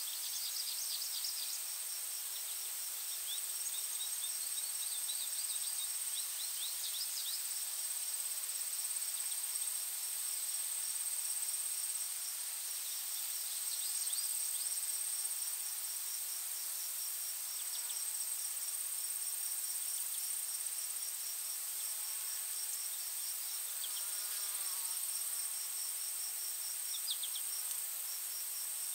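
Forest insects trilling: one steady high-pitched drone and a rapid, evenly pulsed chirping beneath it, over a soft steady hiss. A few short descending bird song phrases come in now and then, with some lower curved calls a little past the middle.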